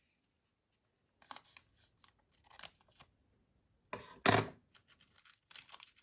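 Trading cards and their paper and plastic packaging being handled: short scattered rustles and scrapes, with one louder, brief scrape about four seconds in.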